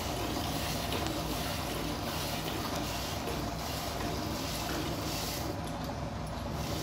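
Hand-milking a water buffalo: milk squirting into a metal bucket, over a steady low rumble.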